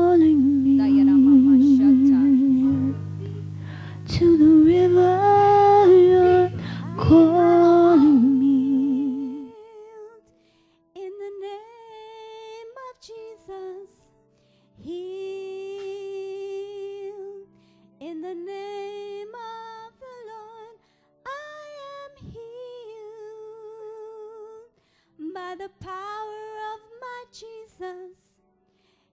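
A woman singing a slow song with vibrato over sustained instrumental accompaniment; about nine seconds in the accompaniment drops out and she sings on alone in long held notes with short pauses between phrases.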